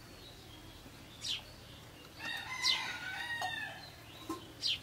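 A rooster crowing once, a call of about a second and a half starting a little over two seconds in, with a short bird chirp before it and another near the end.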